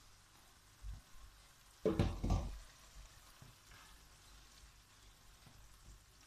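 Chopped vegetables and masala frying faintly in a non-stick wok on a gas burner, stirred with a wooden spatula, with two loud knocks against the pan about two seconds in.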